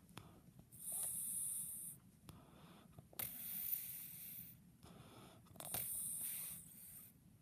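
A 13-month-old baby snoring in sleep: three noisy breaths, each a little over a second long, coming about every two and a half seconds.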